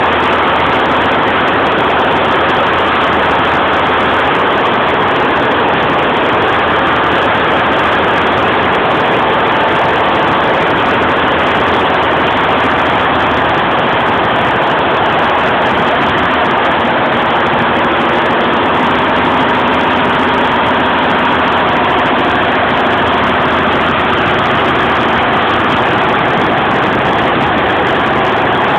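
Golden Lion embroidery machine running steadily at 850 RPM.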